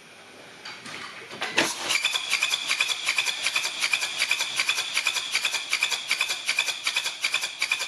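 Mercedes OM651 four-cylinder diesel turning over on the starter during a compression test, beginning about two seconds in: a rapid even pulsing, several beats a second, with a steady high whistle on top. The whistling and noise are the sign that the cylinder still holds compression, here about 24 bar.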